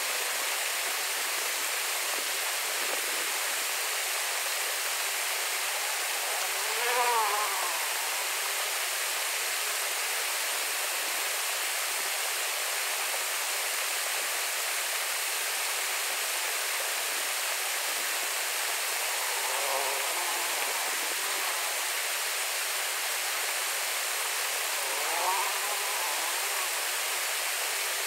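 Shallow stream rushing over rocks in a small cascade, a steady, even rush of water. Three brief pitched sounds rise above it, the loudest about a quarter of the way in and two fainter ones near the end.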